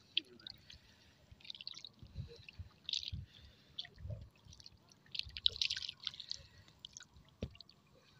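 Irregular splashes and drips of shallow water with soft, squelchy low thuds, coming in uneven bursts a few times over the stretch.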